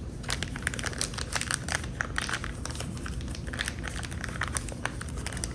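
Plastic packaging crinkling and crackling as it is handled and opened, a dense run of irregular crackles.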